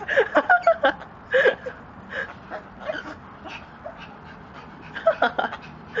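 Animal calls: a string of short yelps and whines that slide in pitch. A loud cluster comes in the first second, softer calls are scattered through the middle, and another loud cluster comes near the end.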